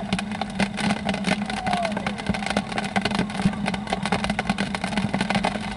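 Rain pattering: a dense, continuous spatter of small drop taps over a steady low hum.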